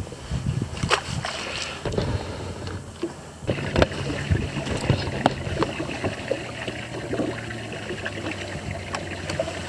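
Water sloshing and lapping at the side of a small fishing boat, with scattered knocks and clicks of gear against the boat. A steady low hum comes in about a third of the way through.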